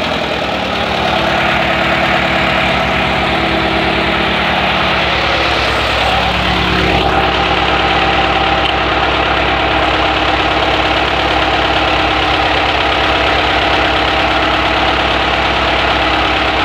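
Opel Olympia Rekord's 1.5-litre inline four-cylinder engine running steadily on a test stand, out of the car.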